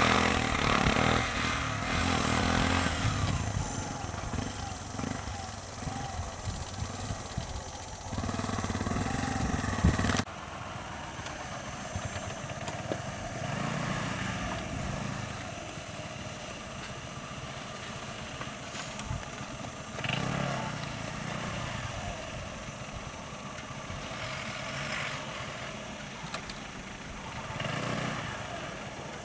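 Vehicle engines idling: a three-wheeler's small engine running loudly for about the first ten seconds, then an abrupt cut to a bus engine idling more quietly.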